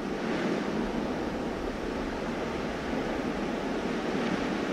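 A steady, even rushing noise with no distinct events, weighted toward the low-middle range.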